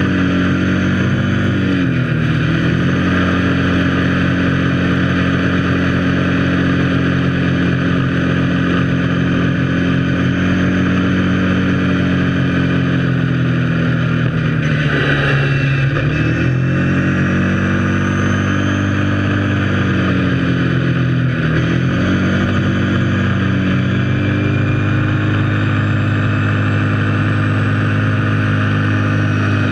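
Kawasaki KFX 700 quad's V-twin engine running under way at steady revs. The engine speed dips briefly and climbs back several times: about two seconds in, around the middle, about three-quarters through and near the end. A steady rushing noise runs along with it.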